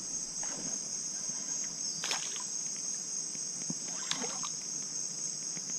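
A steady, high-pitched chorus of insects, unbroken throughout. Two faint short sounds come about two and four seconds in.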